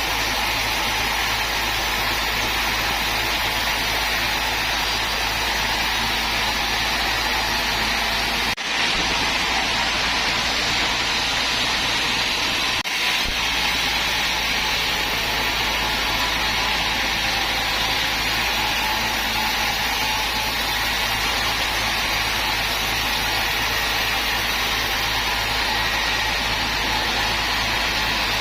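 Sawmill machinery running steadily, a loud continuous mechanical noise, broken by two brief dips about nine and thirteen seconds in.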